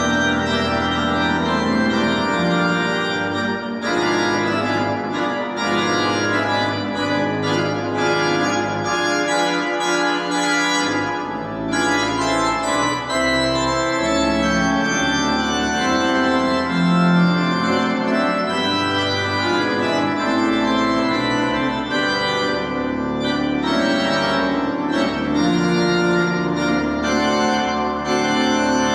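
Church organ playing full, sustained chords over long low bass notes, the harmony changing every second or two.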